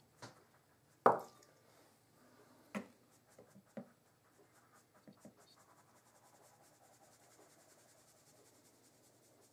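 Stainless-steel mesh sieve knocked several times while sifting flour into a plastic mixing bowl, the loudest knock about a second in, then the soft rustle of flour shaking through the mesh.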